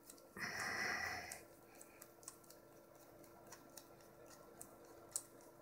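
Faint small clicks and ticks of a screwdriver working two small screws down into a tachometer movement, with a rasping noise lasting about a second, about half a second in.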